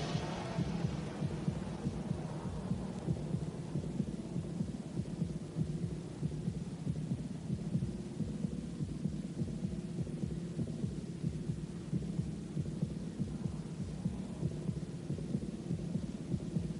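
Stadium crowd noise heard through an old television broadcast soundtrack: a steady, muffled low din without clear cheers.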